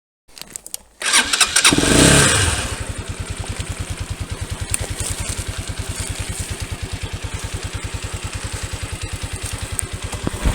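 Single-cylinder pit bike engine starting about a second in, revving briefly, then settling into a steady, pulsing idle.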